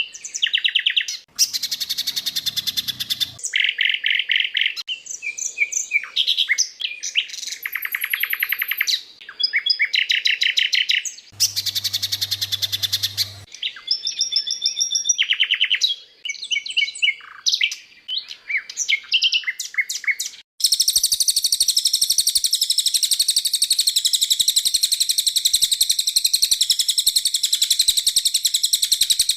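A spliced compilation of songbird recordings: short bursts of repeated chirps and rapid trills from different birds follow one another, and from about two-thirds of the way through one bird sings a long, unbroken, high warbling song. A faint low hum sits under a couple of the short clips.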